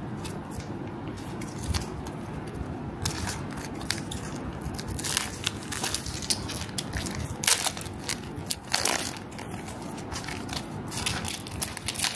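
Foil wrapper of a Pokémon trading card booster pack crinkling and crackling as it is torn open and peeled back by hand, in a string of short irregular crackles.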